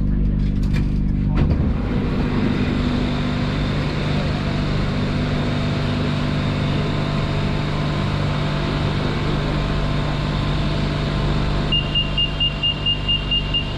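Inside a BTS Skytrain car: the train's steady electric hum and rumble, with a few clicks in the first second or so. Near the end a rapid run of high beeps, about four a second, sounds: the door-closing warning.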